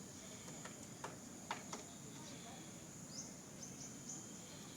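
Outdoor ambience: a steady high-pitched insect drone, with a few short clicks about a second and a half in and several brief high bird chirps toward the end.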